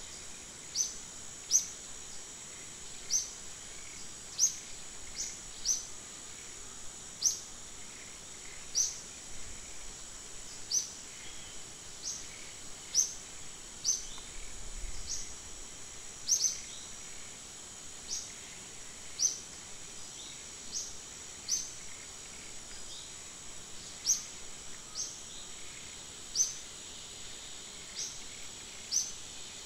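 Forest ambience: a steady high insect drone, with a short, sharp, falling chirp call repeated every one to two seconds.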